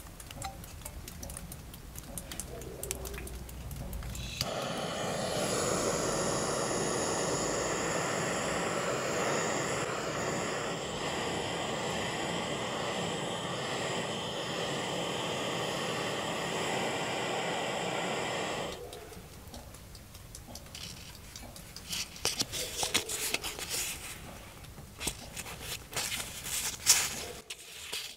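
Steady rushing hiss lasting about fourteen seconds, from a metal nozzle held over brass plates. Before and after it come light handling clicks, and near the end an abrasive pad rubs on brass sheet.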